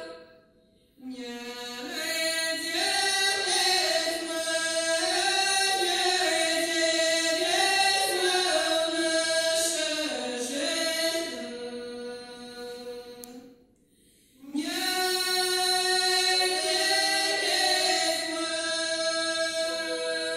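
Several voices singing unaccompanied in multi-part harmony, holding long chords that shift from note to note. The singing breaks off twice briefly, about a second in and again around fourteen seconds in.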